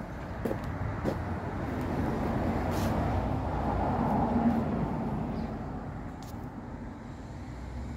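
Steady outdoor road-traffic noise that swells about four seconds in, as a passing vehicle would, then eases off.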